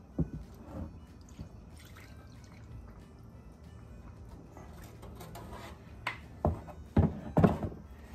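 Old engine oil with some sludge in it pouring and dripping out of a tipped-up Dodge T245-A oil pan into a plastic drain tray, with several sharp knocks of the pan against the tray, loudest near the end. Music plays in the background.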